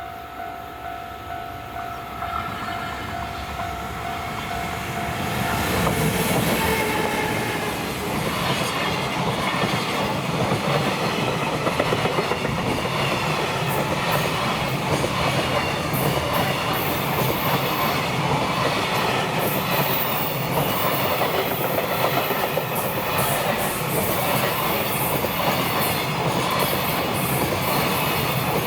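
Freight train hauled by an EF210 electric locomotive passing over a level crossing, its wheels clattering steadily over the rail joints. At the start a steady tone sounds while the train's noise builds; the tone is lost about six seconds in, as the train reaches full loudness.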